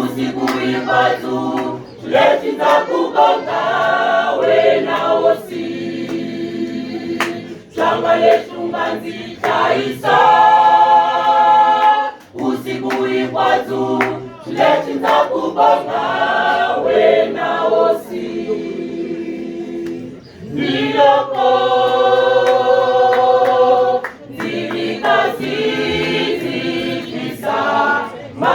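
Church choir singing, many voices together in phrases with brief breaths between them.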